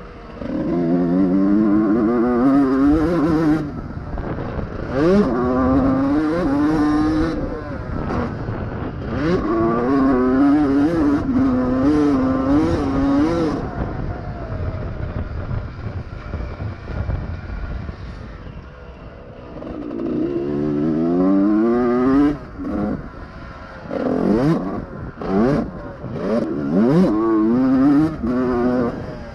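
Honda CR125R two-stroke motocross engine, ridden hard: repeated bursts of revving that climb in pitch and cut off sharply as the throttle is chopped, with a quieter stretch of lower revs about two-thirds of the way through.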